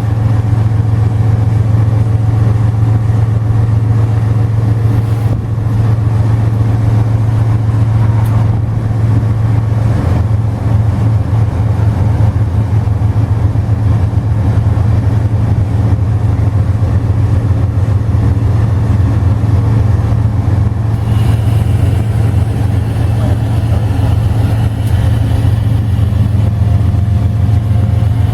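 Diesel freight locomotive engine running close by, a loud, steady low drone. A thin high tone joins it about twenty seconds in.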